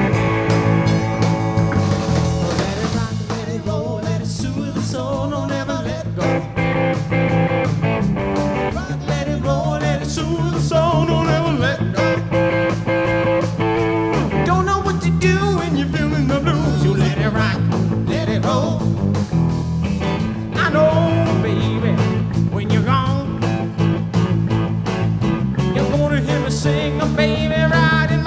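Live rock and roll power trio playing: a Telecaster-style electric guitar, a Precision-style electric bass and a drum kit, with a male lead vocal sung into the microphone through part of it.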